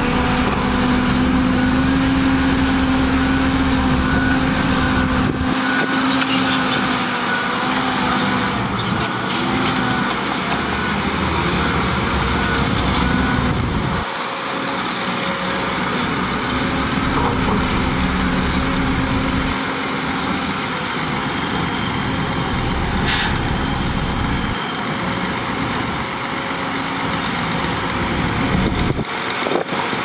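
Diesel engines of heavy earthmoving machines running: a dump truck backing up and raising its tipper body to unload soil, with an excavator and bulldozer working alongside. A steady engine hum fades out and returns a few times over the engine noise.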